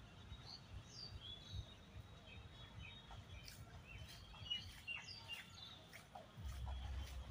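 Birds chirping: many short, high calls scattered throughout, several of them quick downward sweeps in the middle. A low rumble comes in near the end.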